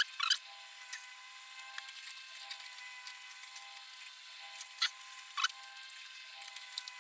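Scattered light metal clicks and taps of hand tools as exhaust header nuts are fitted on a Harley-Davidson Evolution V-twin, over a steady faint hum.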